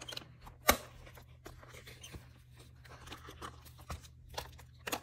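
Packaging and small paper and plastic stationery items being handled: rustling and tearing, with a sharp click just under a second in and another near the end.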